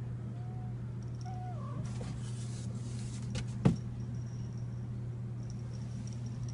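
Cardboard fan box being handled and turned over: rustling about two seconds in, then a single sharp knock just past halfway, over a steady low hum.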